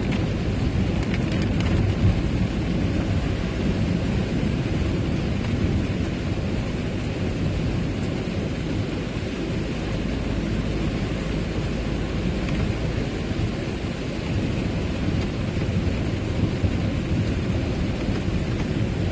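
Steady low rumble and hiss heard inside a van's cab while it drives on a rain-soaked road: tyres on wet asphalt and engine, with rain on the windscreen.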